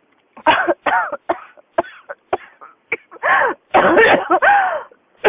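A person in a coughing fit that won't stop: a quick string of short, sharp coughs, then about three seconds in a run of longer, harsher coughs with the voice catching in them.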